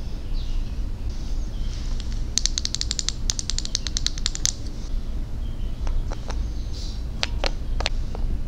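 Soft rubbing of fingers on a plastic mannequin face, then long acrylic nails tapping quickly on a wooden toy lotion bottle for about two seconds, followed a little later by a few separate clicks and taps. A steady low hum runs underneath.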